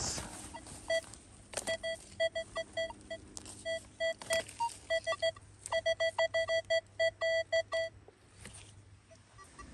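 Nokta Legend metal detector sounding its target tone: runs of quick, short beeps at one steady pitch as the coil is swept back and forth over a dug hole, signalling metal still in the hole. A few sharp knocks come in between.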